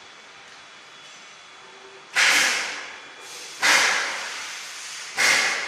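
Three sudden loud bursts of hissing noise, about a second and a half apart, each fading away over about a second.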